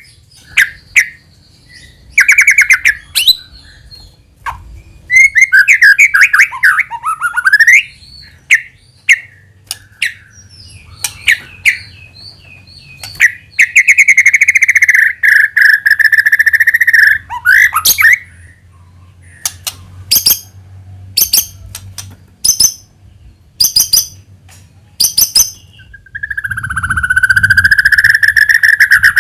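White-rumped shama (murai batu) singing a loud, varied song: whistled phrases, runs of sharp clicking chips, and two long held buzzy notes, one in the middle and one near the end.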